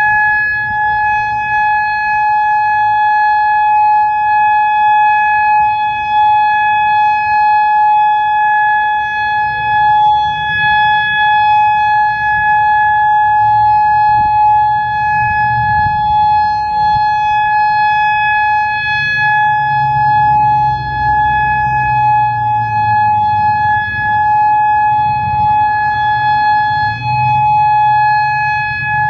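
Federal Signal Modulator electronic outdoor warning siren sounding a steady tone, holding one pitch without rising or falling. A low rumble comes and goes underneath.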